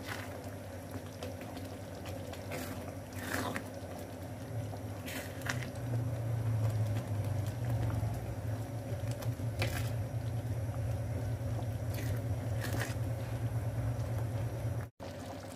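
Thick tomato meat sauce simmering in a frying pan while being stirred with a spatula: wet bubbling and squelching with scattered short clicks of the spatula against the pan, over a steady low hum.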